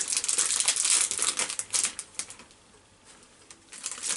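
Candy wrapper crinkling and crackling as it is pulled open by hand. The crinkling is busy for about two seconds, goes quiet, then a few more crinkles come near the end.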